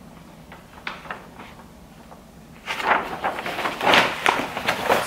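Wrapping paper rustling and crinkling as it is handled. It starts a little over halfway through, after a quieter stretch with a couple of faint clicks.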